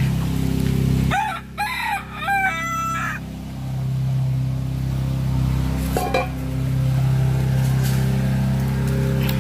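A rooster crows once about a second in, a cock-a-doodle-doo of several rising and falling notes ending in a held note. A short call follows about six seconds in, over a steady low hum.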